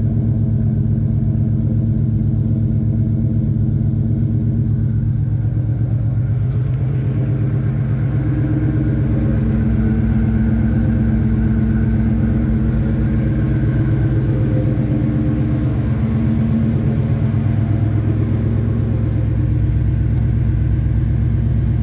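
Ford Coyote 5.0 L V8 engine idling steadily, a low, even running sound with a rapid regular pulse.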